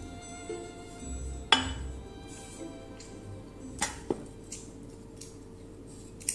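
Glass measuring cup clinking and rolling on a glass tabletop as sesame dough is rolled flat: one sharp clink about a second and a half in, two quicker ones near the four-second mark and another at the end.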